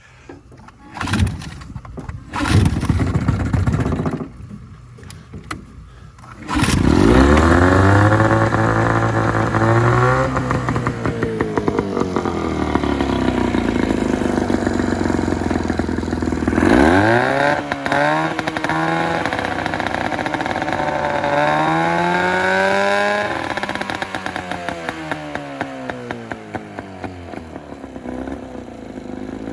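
Jon boat's outboard motor being started: a few short cranking attempts in the first seconds, then it catches about six and a half seconds in and keeps running, its pitch rising and falling several times as the throttle is opened and eased.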